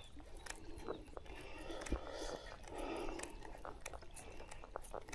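Faint, irregular clicks and rustling close to the microphone, from handling the fishing rod and reel.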